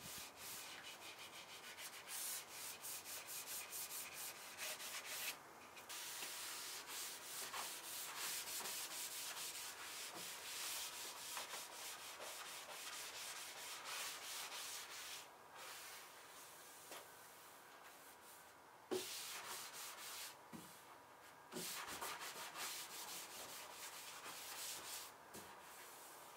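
A white Scotch-Brite pad rubbing wax into lacquered wood, a hissing back-and-forth scrubbing in quick strokes, broken by a few short pauses.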